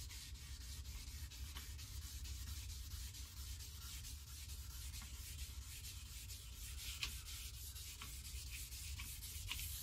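Wet/dry sandpaper, around 800 grit, rubbing steadily over a boat hull's oxidised metal-flake finish in wet sanding, a continuous scratchy hiss.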